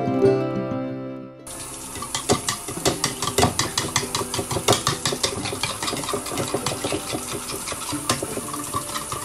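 Metal spoon beating eggs in a ceramic bowl: a fast, uneven run of clicks and taps as the spoon strikes the bowl, with the liquid sloshing. It begins about a second and a half in, after a stretch of plucked-string background music.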